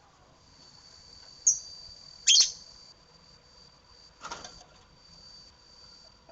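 Lovebirds chirping: two short, sharp, high-pitched chirps in the first half, the second the loudest, then a brief rustling burst about four seconds in. A steady high-pitched tone runs underneath.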